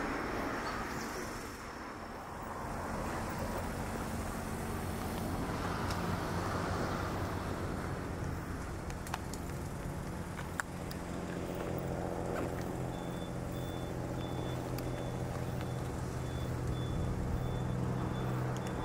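Steady low engine hum running throughout, with two faint clicks near the middle. Faint high beeps repeat about twice a second through the last third.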